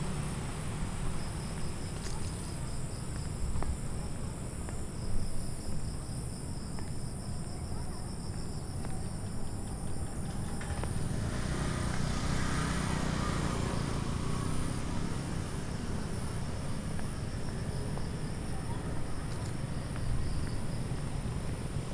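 Outdoor evening ambience of insects chirping, with a steady high trill and a pulsing high chirp that fades out about halfway through, over a constant low rumble. A broad swell of noise rises and falls around the middle.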